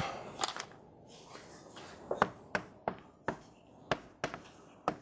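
Chalk tapping and scratching on a blackboard while writing: a string of sharp, irregular clicks, about three a second, starting about two seconds in.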